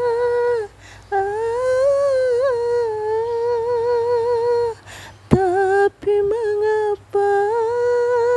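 A woman's voice singing unaccompanied, holding long wordless notes with a wavering vibrato, in several phrases broken by short pauses for breath.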